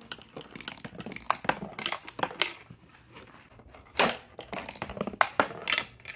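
Marble clattering and rolling through a cardboard marble run, an irregular run of clicks and rattles, loudest about four seconds in and again near the end.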